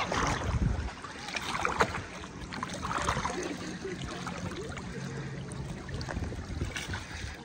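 Plastic oars of an inflatable rowboat dipping and splashing in lake water, with water lapping against the boat's side.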